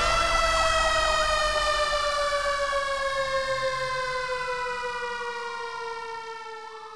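Siren-like wail closing an entrance theme: a multi-tone wail that has just risen, then slowly falls in pitch as it fades out, with a brief rise again near the end.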